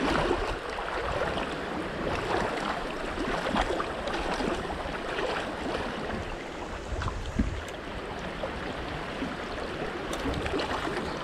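Shallow rocky creek running steadily, a continuous babble of water over stones.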